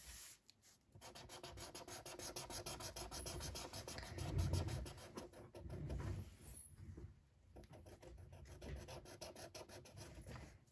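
Felt-tip marker scratching back and forth on paper in rapid coloring strokes, pausing briefly about three quarters of the way through.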